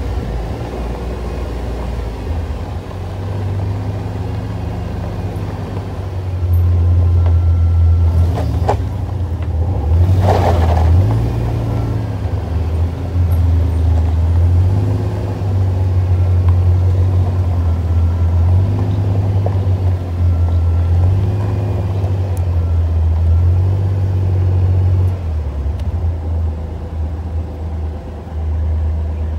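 ATV engine running while riding, a low drone that swells and eases with the throttle, with a brief rush of noise about ten seconds in.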